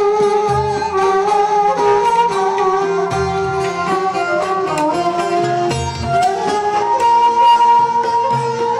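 Live Turkish folk music: a folk ensemble performing a melody on bowed and plucked string instruments, with low notes coming in and out beneath.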